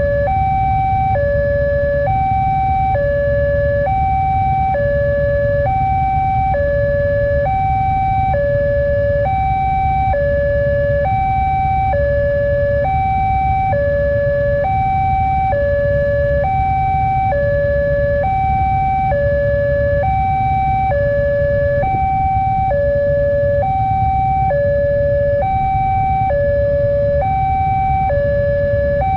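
Railway level-crossing warning alarm sounding a steady two-tone signal, high and low notes alternating evenly, each held just under a second: the crossing is closed for an approaching train. A low traffic rumble lies underneath.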